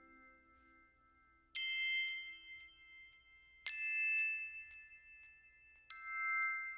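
Background music: three struck bell-like notes, about two seconds apart, each ringing on and slowly fading, as the plucked-string melody before them dies away.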